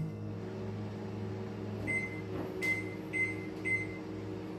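Microwave oven humming steadily while its keypad beeps four times in the second half, short single-tone beeps as buttons are pressed to set another two minutes of cooking.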